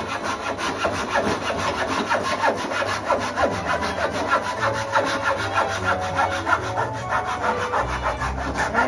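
Japanese hand saw cutting through a wooden block in quick, even back-and-forth strokes.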